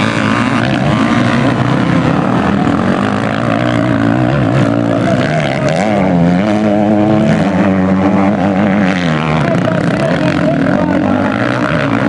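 Several motocross bikes running on a dirt track, their engines revving up and down and overlapping. One engine climbs in pitch about six seconds in, holds, and drops away near nine seconds.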